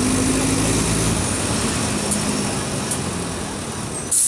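Diesel engine of a Mercedes-Benz OF 1722M city bus running at mid revs, getting a little quieter over the last couple of seconds. Just before the end a sudden loud hiss of air cuts in.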